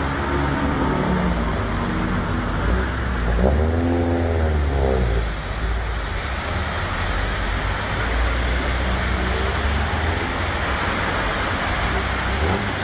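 Cars driving through deep floodwater: engines running with a steady low rumble over the splash and churn of water around the wheels. About four seconds in, one engine rises and then falls in pitch.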